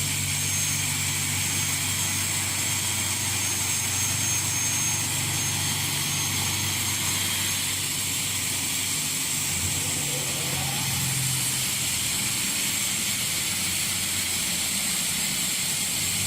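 Double-head aluminium cutting saw running on one head: a steady motor hum under an even high hiss, running smoothly. The low hum shifts in pitch about ten seconds in.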